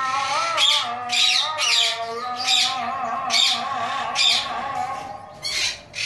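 Rainbow lorikeets squawking: shrill, harsh screeches repeating roughly once a second, with a steadier lower-pitched sound running beneath them.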